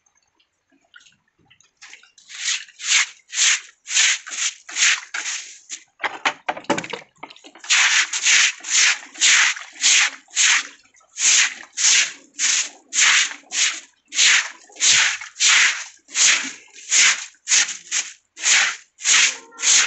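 Stiff straw broom sweeping muddy water across a wet loft floor: brisk scrubbing strokes about two a second, starting about two seconds in, with a short break in the rhythm around six seconds.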